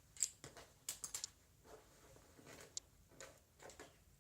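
A few faint, light clicks and taps, with a little soft handling noise between them.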